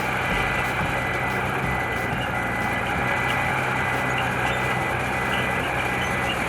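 Diesel engine of heavy construction machinery running steadily under a thin, high-pitched whine.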